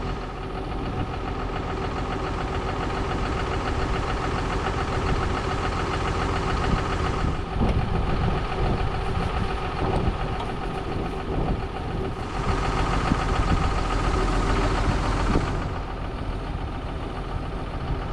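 Farm tractor engine running steadily, growing louder and harsher twice: briefly about seven seconds in, then for a few seconds from about twelve seconds in.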